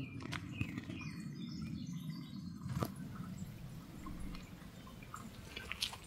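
Faint outdoor ambience under a steady low rumble, with a few short bird chirps about half a second in and a single sharp click just before the middle.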